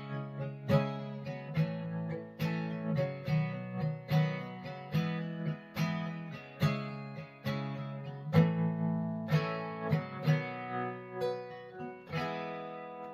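Acoustic guitar strumming the closing chords of a song in a steady rhythm of about two strokes a second, with no singing. The last chord rings on and fades out near the end.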